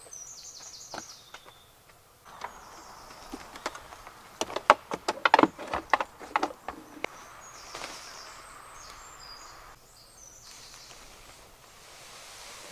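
Birds chirping, with a cluster of sharp knocks and clatters about four to seven seconds in as gear is handled at a vehicle's open side door.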